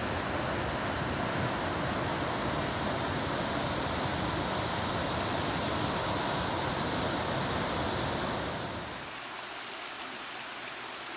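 Small waterfall rushing: a steady, full wash of falling water that drops to a quieter, thinner hiss about nine seconds in.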